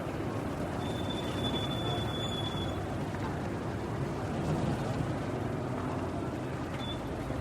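City street traffic: a steady rumble of engines and tyres. A thin, high whine starts about a second in and holds for about two seconds.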